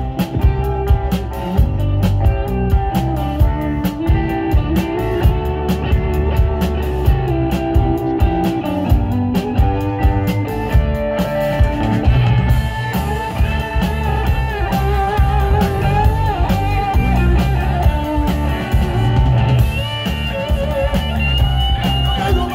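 Live rock band playing: electric guitars, bass guitar and drum kit keeping a steady beat.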